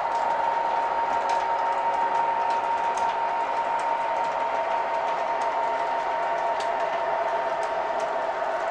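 MTH O-gauge model diesel locomotive and its flatcars running past on three-rail track: a steady motor and gear whine over the rumble of wheels, with occasional faint clicks.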